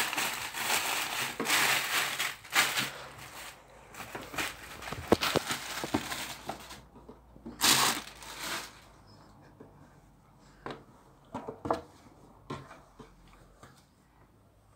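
Clear plastic packaging bag crinkling and rustling as a T-shirt is pulled out of it. The rustling is dense for the first few seconds, then breaks into separate bursts, and after about eight seconds only a few short rustles and taps remain.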